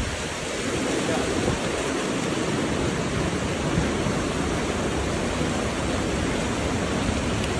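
Steady, dense rushing noise of a hurricane storm, even and unbroken.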